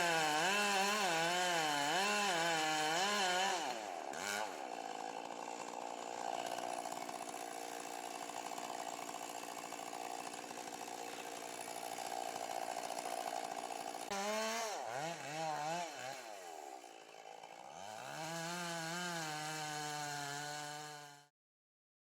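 Two-stroke chainsaw engine running, its pitch rising and falling about once a second as the throttle is worked. It then runs steadier and a little quieter for about ten seconds, before revving up and down again at a lower pitch and cutting off abruptly near the end.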